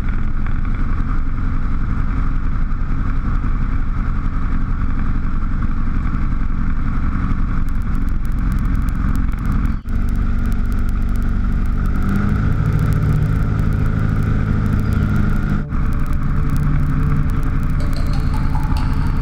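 Piper PA-20 Pacer's four-cylinder Lycoming piston engine and propeller running steadily, heard from inside the cabin, with two brief dropouts where the sound cuts.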